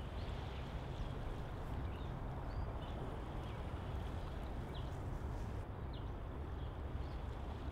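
Steady low outdoor rumble of wind on the microphone, with a few short, faint high chirps scattered through it.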